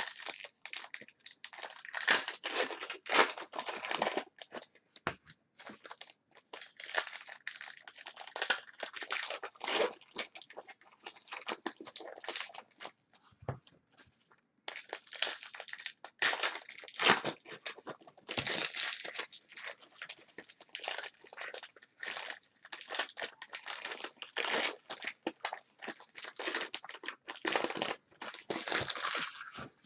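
Football trading-card packs being torn open and their wrappers crinkled: irregular crackling and rustling, with a short pause about halfway through.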